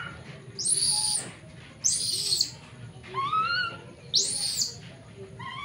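Baby monkey crying in fear: three shrill screams, alternating with lower, wavering whimpering cries.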